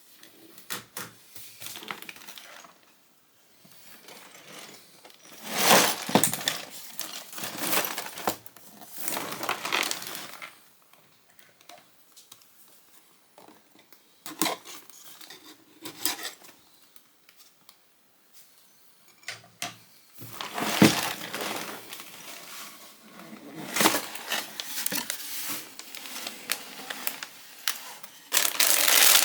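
LEGO parts packaging being handled: plastic bags crinkling and rustling, with small clicks and clatters of plastic pieces, in irregular bursts. Near the end a louder, steady crinkling starts as a parts bag is worked open.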